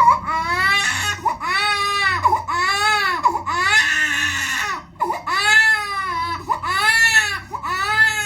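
A baby crying hard in a steady run of short, wailing cries, each rising and falling in pitch, one every second or less, with one longer cry midway.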